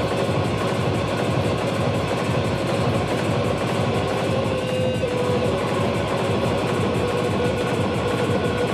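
Experimental live music: electric guitar played through electronics. It makes a dense, unbroken drone with a fast, even pulsing underneath and a held tone above it.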